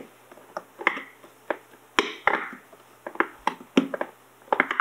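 A cloth rag is rubbed and pressed over a wet-applied vinyl graphics wrap on a thin polycarbonate RC truck body, working the water out from under it. Irregular clicks and taps from the plastic shell come with short rubbing swishes.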